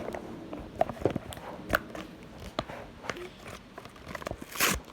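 Hot Wheels blister packaging being handled and opened: scattered clicks and crinkles of stiff plastic and cardboard, with one louder, short rustle near the end.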